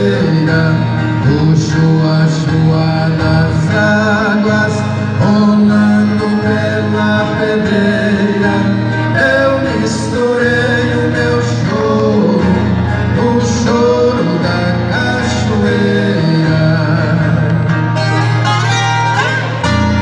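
Two men singing a caipira song together over two strummed violas caipira, the ten-string Brazilian folk guitars, with the violas growing busier near the end.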